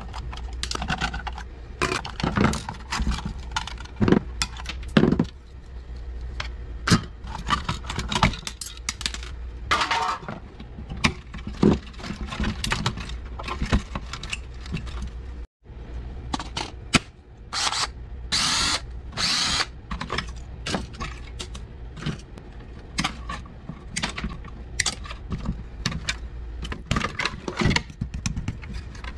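Hand tools and plastic parts clicking, knocking and clattering as a Keurig coffee machine is dismantled, over a steady low hum. A few longer, harsher noisy stretches come about a third of the way in and again past the middle.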